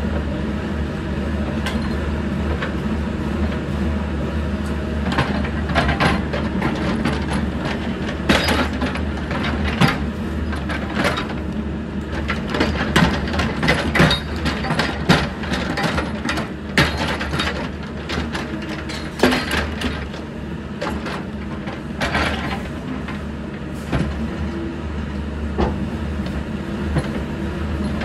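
Mini excavator's diesel engine running steadily under load, with repeated sharp clanks and knocks as its steel bucket pushes and scrapes against a bollard pole to work it loose.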